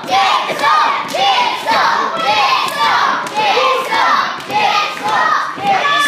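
Wrestling crowd shouting and yelling in overlapping calls, many of them high-pitched voices, swelling and falling about twice a second.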